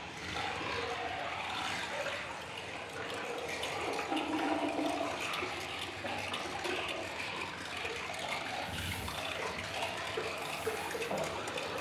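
Electroacoustic sound-art music: a dense, continuous noise texture with short pitched fragments drifting through it, and brighter high hiss coming in near the end.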